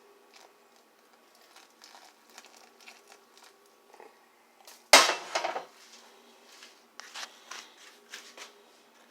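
Kitchenware being handled during coffee-making: light clinks and knocks, with one loud clatter just before five seconds in that rings on briefly, then a few more sharp clicks.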